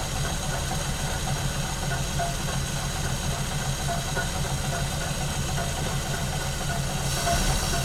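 1950 Pontiac Silver Streak's flathead engine idling steadily on a freshly rebuilt carburetor, growing slightly louder near the end.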